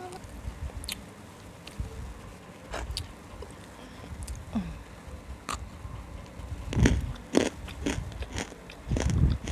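Close-miked biting and crunching of dry, roasted, hard chunks in the mouth: scattered crisp cracks, with the loudest crunches about seven seconds in and again near the end.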